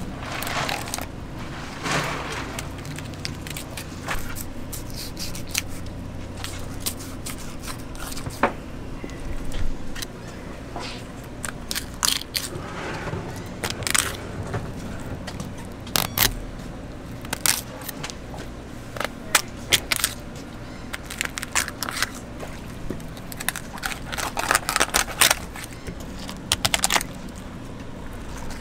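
Fillet knife (an 8-inch Dexter Sportfish) cutting a blackfin tuna loin away along the backbone. The blade makes irregular short scrapes and clicks against the spine and bones, some in quick clusters.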